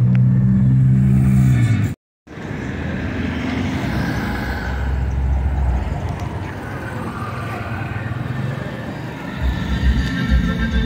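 Town street traffic: a nearby engine runs steadily and loudly for about two seconds, then the sound cuts out briefly. A general mix of car traffic and street noise follows, with low rumbles near the end.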